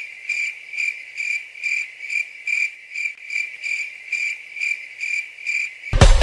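Cricket chirping, a high pulsed chirp repeating evenly about twice a second. It starts and stops abruptly, cut in between stretches of music.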